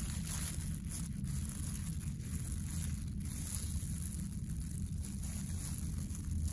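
A steady low rumble, with a few faint soft rustles as plastic-gloved hands handle dissected cow-eye tissue on a cutting board.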